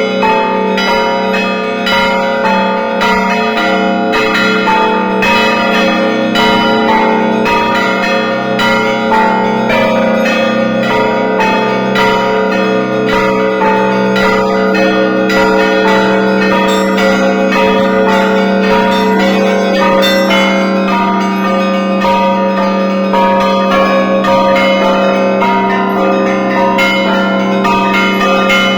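Russian Orthodox monastery bells rung in a festive peal by a bell ringer. Small bells are struck in a fast, dense pattern over the steady ringing of the large bass bells.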